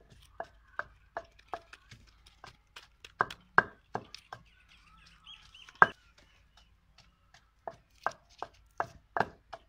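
Knife chopping on a cutting surface: sharp knocks about two and a half a second, pausing for a couple of seconds after the middle apart from one loud knock.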